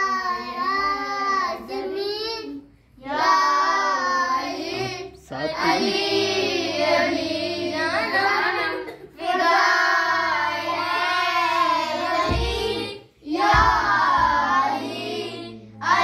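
A young boy singing an Urdu devotional verse in praise of Mola Ali, solo, in long phrases broken by short pauses for breath.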